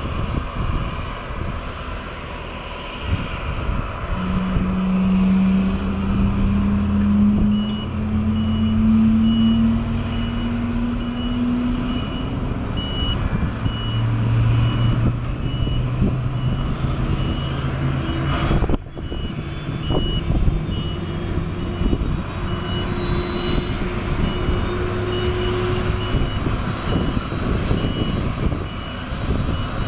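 Apron machinery noise around a parked Boeing 767-300ER with a pushback tug hitched at the nose, just before pushback: a steady drone with a low engine note that rises slowly, joined several seconds in by an evenly spaced high beeping. Near the end a faint high whine rises.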